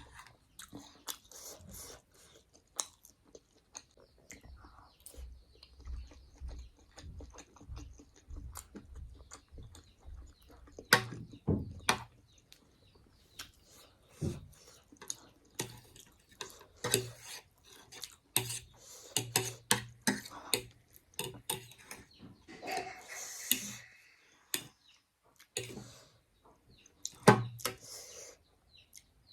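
Close-up chewing and mouth sounds of someone eating, with irregular wet smacks and clicks.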